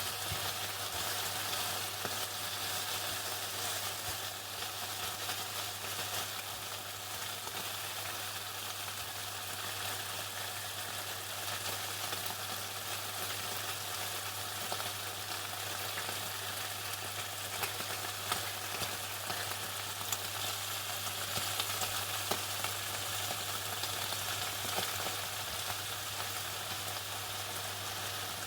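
Chicken frying in hot oil: a steady crackling sizzle dotted with small pops, over a low constant hum.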